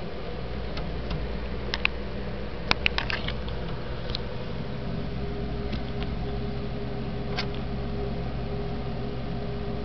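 Handling noise from a handheld camera being moved about: scattered sharp clicks and taps, a quick cluster about three seconds in, over a steady low background hum.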